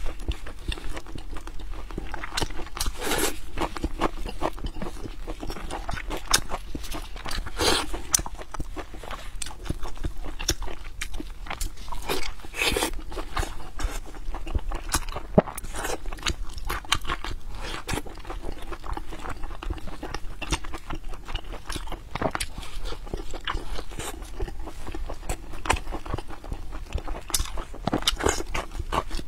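Close-miked chewing and wet mouth smacks of someone eating soft, fatty braised pork belly in thick sauce, with many short sharp clicks coming irregularly throughout.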